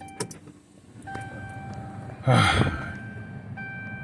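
Ignition key clicking in a truck's ignition switch, then an electronic warning chime tone sounding in the cab, stopping and starting again. About two seconds in, a brief louder rushing sound covers it.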